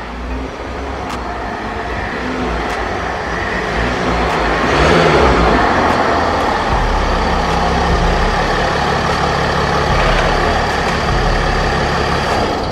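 Mercedes-Benz ML SUV driving slowly into a workshop, its engine running and growing louder as it comes closer over the first few seconds, then holding steady.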